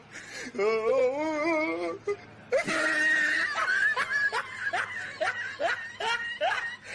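Laughter: a wavering, warbling laugh, then about two and a half seconds in a quick string of short rising hoots, with music underneath.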